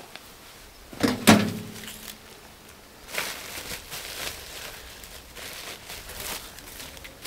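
A plastic crate knocked against a metal wheelbarrow about a second in: a short loud clatter with a brief ring. Then irregular rustling and scraping of a woven plastic grow sack and soil as it is handled.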